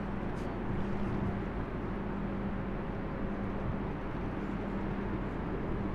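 Large container ship's engine droning steadily: a constant low hum over an even wash of outdoor noise.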